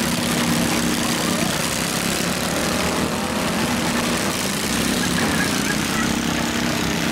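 Several small garden tractor engines running together in a steady drone over a constant background hiss.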